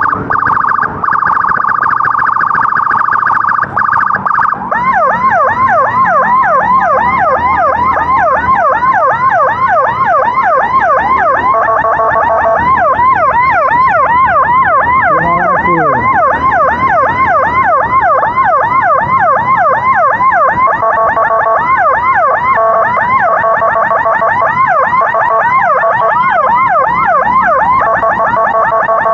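Emergency vehicle sirens: a steady tone for the first four seconds or so, then a fast, repeating rise-and-fall yelp of about three sweeps a second. From about twelve seconds in, a second siren's pulsing tones sound over it.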